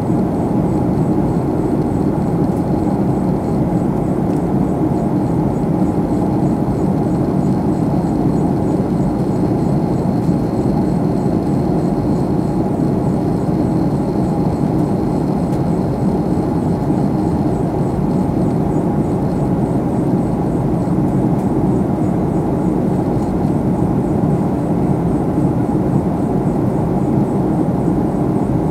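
Steady cabin noise of a Boeing jet airliner in flight: a constant rush of engine and airflow noise heard from inside the cabin, with a faint high whine above it.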